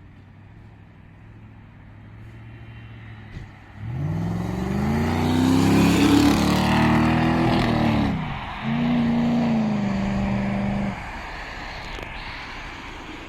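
Audi A6 C5 quattro engine idling, then revved about four seconds in and held high for roughly four seconds. It drops back, is revved again to a steady pitch for about two seconds, then falls back to idle.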